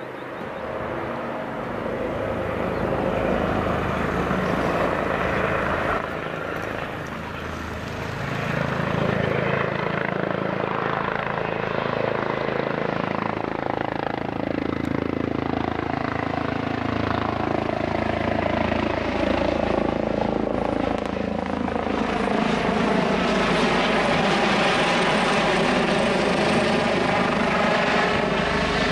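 Airbus H145 air-rescue helicopter's twin turboshaft engines and rotors, growing louder as it approaches and comes nearly overhead. From about halfway through, a tone in the rotor noise slides slowly down in pitch.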